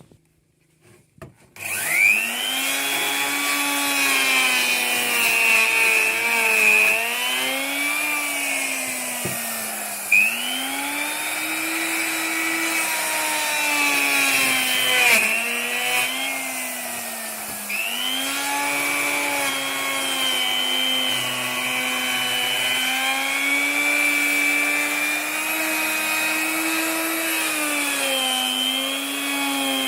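Electric wood router switching on about a second and a half in and running at speed, cutting wood with a slotting bit cut down for panel raising. Its high whine sags in pitch several times as the bit bites into the cut, then picks back up.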